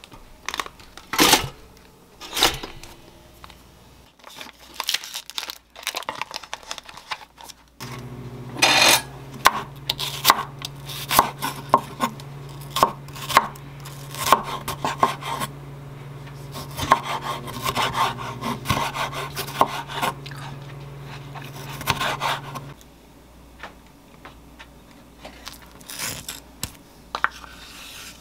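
Kitchen knife slicing an onion on a wooden cutting board: a run of sharp chops and taps. A steady low hum comes in suddenly about eight seconds in and cuts off a little after twenty seconds. Near the start there is a clunk as bread is lowered into a pop-up toaster.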